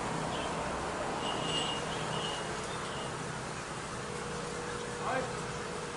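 Steady insect buzzing, with a few short high chirps between one and two seconds in and a brief rising call about five seconds in.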